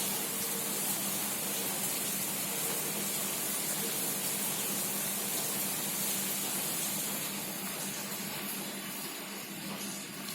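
Heavy rain falling in a steady hiss, easing a little in the last few seconds.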